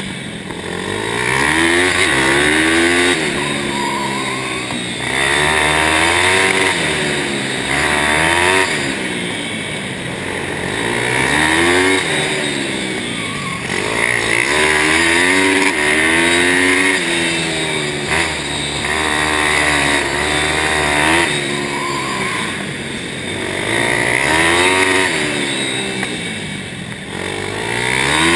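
Pitster Pro pit bike's small single-cylinder four-stroke engine, heard from on board, its pitch climbing and falling every two to three seconds as the throttle is opened and shut lap after lap.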